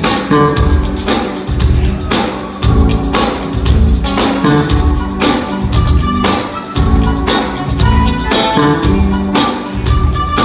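Live band playing an instrumental groove with a steady beat: drum kit, keyboards and semi-hollow electric guitar, with no singing yet.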